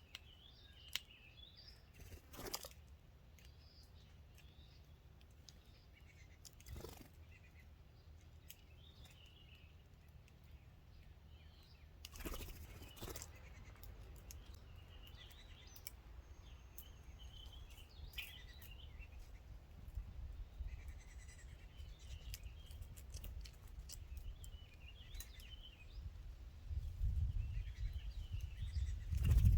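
Small birds chirping and calling on and off, with a few sharp taps and a low rumble that swells near the end.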